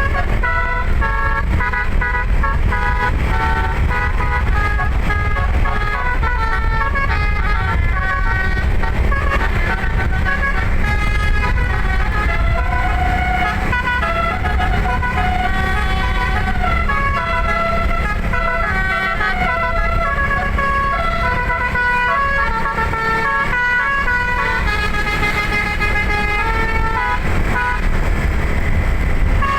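Eleven-note telolet basuri musical air horn playing a tune of quick-changing notes, sometimes several sounding together, over a steady low rumble.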